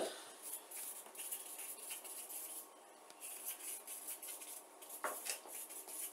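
Felt-tip marker writing on paper flip-chart sheets: a quick run of short, scratchy strokes.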